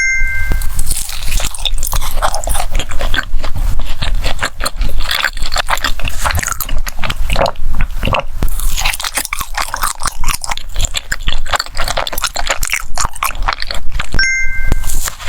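Close-miked mukbang eating: loud, rapid crunching and biting into crisp food, with chewing. A brief high two-note tone sounds at the start and again near the end.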